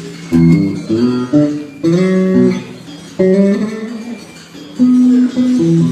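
Guitar being played in short phrases of plucked notes and chords, each struck loudly and then left to ring and fade.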